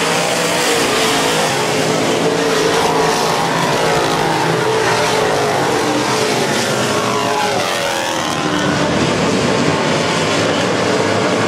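A pack of dirt late model race cars runs hard around a dirt oval, several V8 engines at once. About seven to eight seconds in, engine pitches rise and fall across each other as cars pass.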